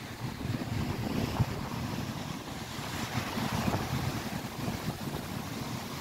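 Gusty wind buffeting the microphone over the wash of lake waves breaking on the shore below.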